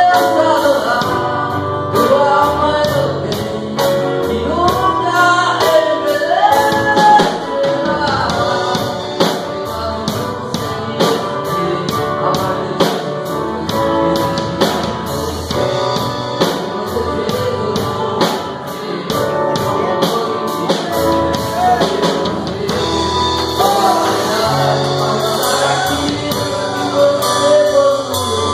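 Live gospel band: a man singing into a handheld microphone, backed by acoustic guitar, drum kit with steady cymbal strokes, and keyboard.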